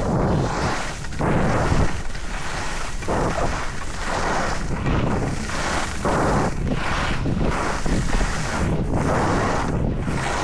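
Skis scraping and carving across snow in a steady rhythm of turns, about one swell a second, with wind buffeting the microphone.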